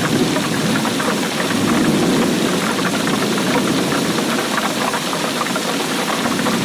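Steady rainfall: a dense, continuous patter of many raindrops.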